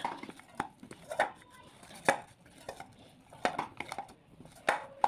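Hands working soft dough in a stainless steel bowl: irregular knocks and taps of the dough and fingers against the steel, with a few sharper strikes spread unevenly.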